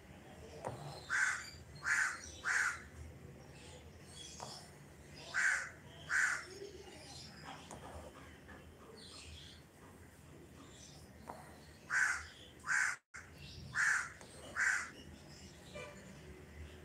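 A crow cawing repeatedly, in runs of two or three short, harsh calls with pauses between the runs.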